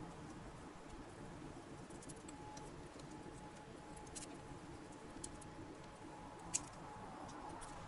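Silicone pastry brush dabbing beaten egg yolk onto raw shortbread cookie dough on a parchment-lined baking tray: faint soft pats with a few small clicks, over a low steady room hum.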